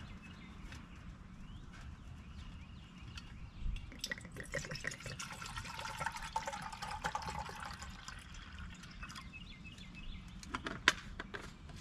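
Water poured from a plastic canteen into a steel canteen cup: a splashing trickle that starts about four seconds in and runs for about five seconds. A sharp click near the end.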